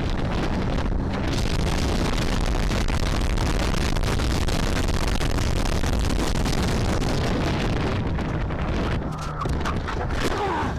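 Loud, steady wind roar on the microphone of a camera riding on a motorcycle at speed. Near the end the roar eases and a few sharp knocks and short squeals come through as the motorcycle goes down.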